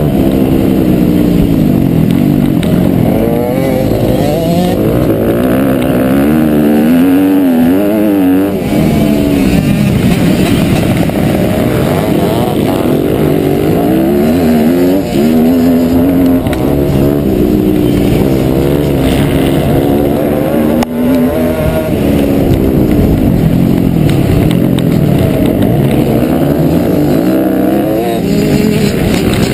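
Dirt bike engine heard close up from the bike itself, running hard at race pace, its pitch climbing and dropping again and again as the revs rise and fall.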